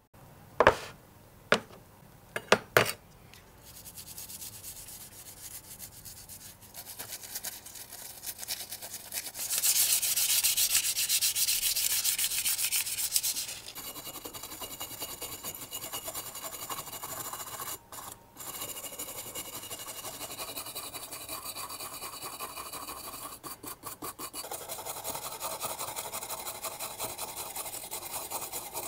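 A few sharp clicks, then a stiff hand brush scrubbing rust off a small metal model truck cab, a continuous scratchy rubbing. It is loudest and brightest for about four seconds a third of the way in and breaks off briefly twice.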